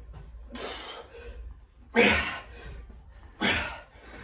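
A man breathing hard during a bodyweight workout: three forceful exhalations about a second and a half apart, the middle one loudest, with the effort of each rep.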